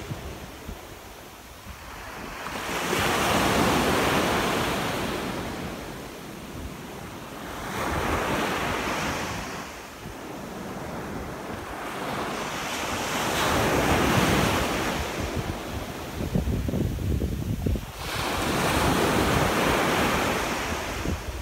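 Small ocean waves breaking and washing up the shore, the surf swelling four times, about every five seconds. Wind buffets the microphone in low rumbling gusts, most clearly just before the last wave.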